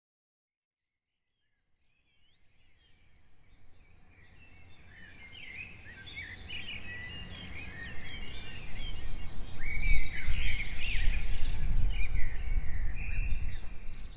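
A chorus of wild birds chirping and singing over one another, over a low rumbling noise. It fades in from silence about two seconds in and grows steadily louder, loudest in the second half.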